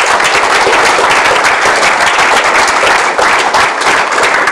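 Audience applauding, dense and even, dying down near the end.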